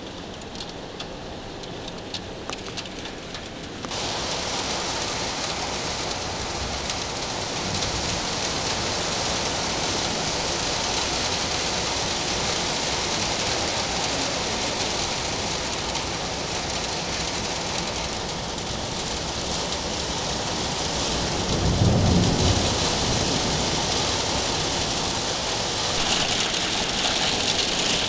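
Heavy storm rain. For the first few seconds scattered drops tick against surfaces, then about four seconds in it suddenly thickens into a dense, steady downpour. About twenty-two seconds in there is a low rumble of thunder lasting a second or two.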